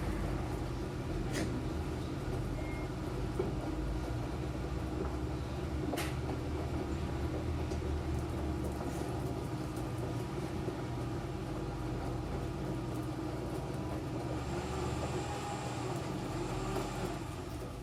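Enxuta Júnior 2 kg washing machine running: a steady motor hum with a few faint clicks, and a thin hiss that joins in near the end.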